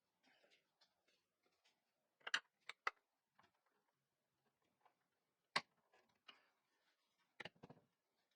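A few scattered sharp clicks and knocks of small wooden parts and hand tools being handled, set down and tapped into place: a cluster of three near the start, one near the middle and a quick group near the end.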